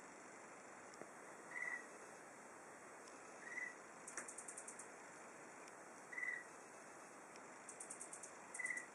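Faint calls of small animals: a short high chirp about every two and a half seconds, four in all, with a few brief trains of rapid, very high ticks between them.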